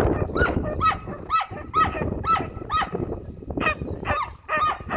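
A herding dog barking over and over at sheep, about two barks a second, with a short break about three seconds in.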